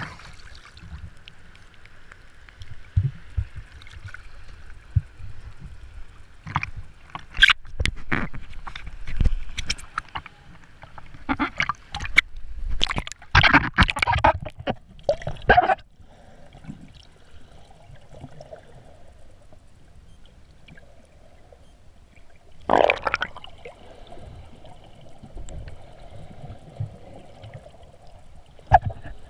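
Sea water splashing and sloshing against a waterproof action-camera housing while snorkeling at the surface, with clusters of sharp splashes through the middle and one more splash about three quarters in. Between them the sound is muffled as the camera dips under the water.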